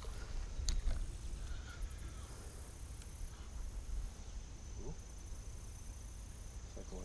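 Insects calling steadily, a high-pitched pulsing drone, over a low rumble, with a single sharp click about a second in.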